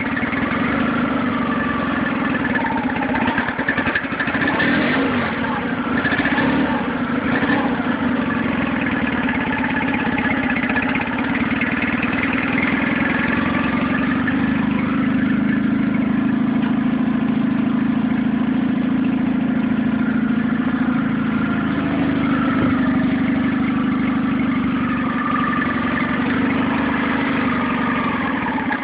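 Nissan 9.8 outboard motor idling on its first run, warming up with the choke on, its speed wavering slightly. It is a rough, low idle that the owner puts down either to the engine not being warm yet or to the off-idle adjustment.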